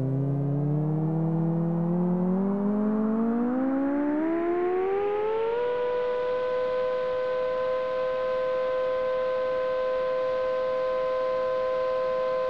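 Electronic synthesizer tone in the background music, gliding steadily upward in pitch for about five seconds, then held on one siren-like note.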